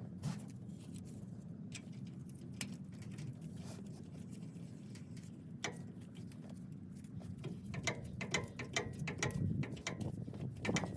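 Hand ratchet wrench clicking as a bolt is turned: scattered clicks at first, then a quick run of close-set clicks from about eight seconds in, over a low steady hum.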